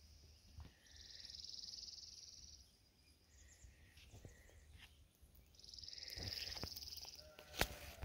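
A high, rapid trill sounds twice, each lasting about a second and a half, some four seconds apart, over a faint low rumble.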